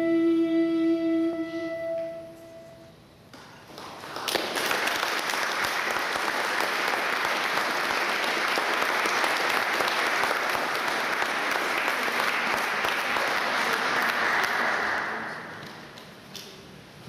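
A woman's voice and a recorder hold the final notes of a song, which die away within the first three seconds. After a short pause, an audience applauds for about eleven seconds, then the clapping fades out.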